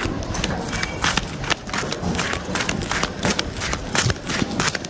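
Quick footsteps on concrete, about two steps a second, each a short scuffing slap.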